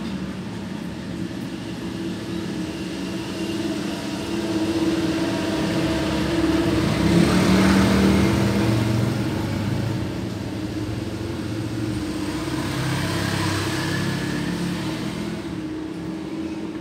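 Motor vehicle engine running nearby, growing louder about halfway through and then easing off, with a smaller swell near the end, like traffic passing or revving.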